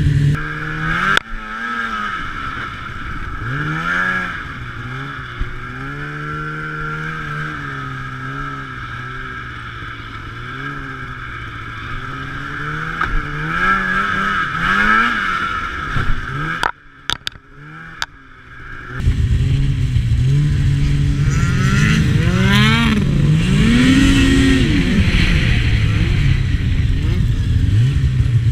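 Snowmobile engine running at varying throttle, its pitch rising and falling as it revs and eases off. The sound drops away briefly a little past halfway, then comes back louder.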